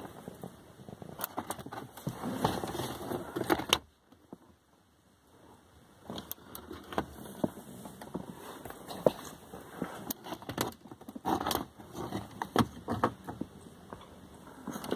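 Plastic dash trim of a 1997 Toyota Camry being handled and worked loose around the cigarette lighter socket: irregular clicks, knocks and scraping, with a brief quiet pause about four seconds in.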